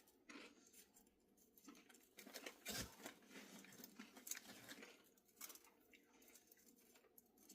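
Near silence with faint, scattered crinkles and clicks of potato chips being handled and scooped through dip, one slightly louder click a little under three seconds in.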